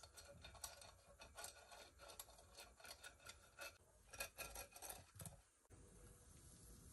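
Faint, quick ticks and scratches of a silicone pastry brush dabbing and rubbing oil onto a waffle iron's plates, stopping about five seconds in.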